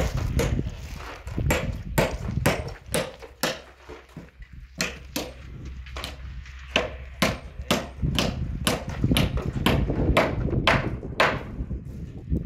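Hand hammers striking timber formwork: a run of sharp, irregular knocks, two or three a second, over a low steady rumble.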